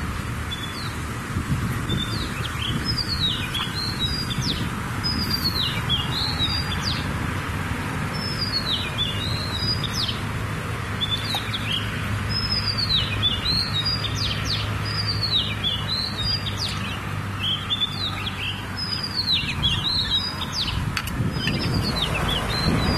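Small birds chirping and singing over and over, quick high notes that slide downward, above a steady low rumble.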